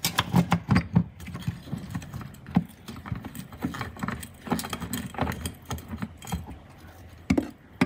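Steel pry bar levering a transmission sideways on its crossmember and new mount: irregular metal clinks and knocks, several a second, with a louder knock near the end.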